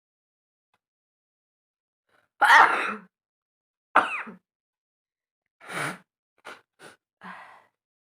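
A woman sneezing hard twice, about two and a half and four seconds in, then a few shorter, quieter bursts of breath. The sneezing comes from a heavy head cold.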